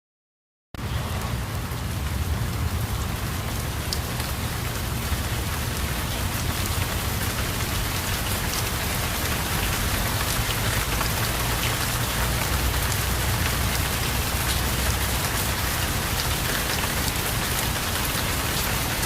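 Steady heavy rain with a low rumble underneath, starting suddenly after a moment of silence: a recorded rain ambience opening the next track.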